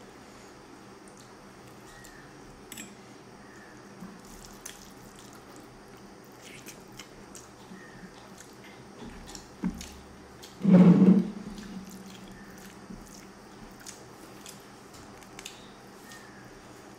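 Fingers mixing and squeezing rice with fish curry on a plate, giving soft wet squishing and small clicks. About eleven seconds in there is one brief, loud, low sound.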